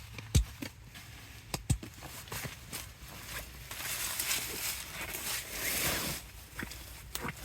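Scattered sharp clicks and knocks, with a rustling noise in the middle that lasts about two to three seconds.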